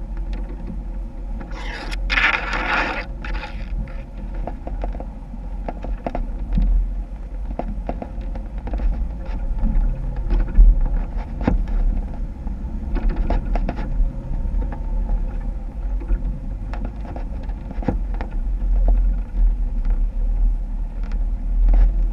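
Off-road Jeep running at low speed over rough ground: a steady low engine rumble with scattered knocks and scrapes, and a loud burst of rushing noise about two seconds in that lasts a little over a second.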